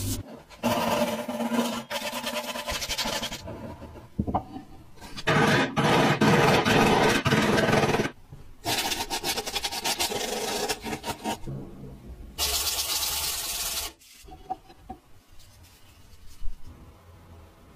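Woodworking on wood in four separate bursts a few seconds long: sandpaper rubbing against a part spinning on a wood lathe, and a gouge cutting and scraping into a wooden block. After that it goes quieter.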